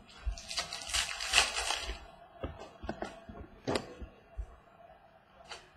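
Football trading cards being handled and flipped through: a rustling, sliding stretch early on, then several light clicks and taps as the cards are moved.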